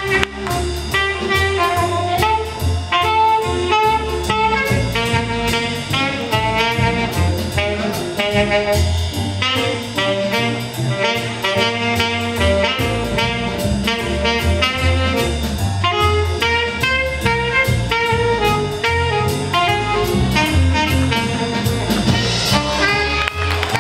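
High school jazz big band playing a swing tune live: quick saxophone lines over brass, bass and drum kit.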